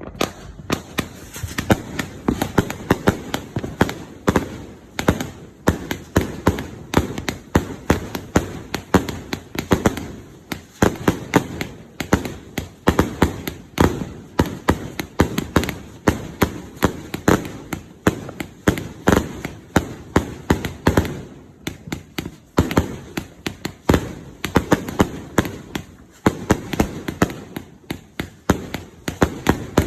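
A 200-shot consumer firework cake firing in rapid succession: a dense, continuous run of sharp bangs and pops, several a second, easing briefly twice before picking up again.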